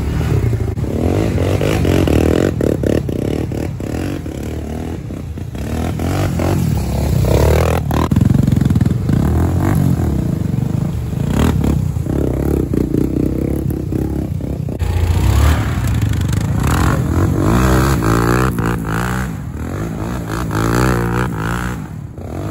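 Honda 400EX ATV's single-cylinder four-stroke engine revving up and down as it is ridden through mud, with scattered knocks. The revs rise and fall repeatedly near the end.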